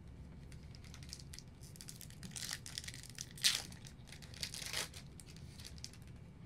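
Crinkling and tearing of a foil trading-card pack wrapper being opened, in a few short rasps with the loudest about three and a half seconds in, amid small clicks of cards being handled.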